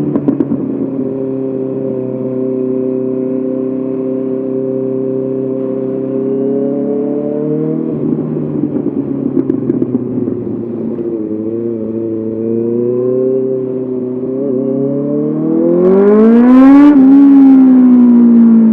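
Honda CBR 650R's inline-four engine through an SC-Project SC1R exhaust, under way: revs held steady and slowly rising, then a rough, uneven stretch about halfway through as the throttle changes. Near the end the revs climb steeply in a hard acceleration, the loudest part, then begin to fall.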